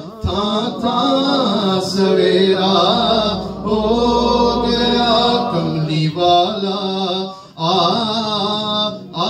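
A man singing a Punjabi naat, a devotional Islamic poem, in long, gliding phrases over a steady low drone. There are brief breaks for breath about two-thirds of the way in and near the end.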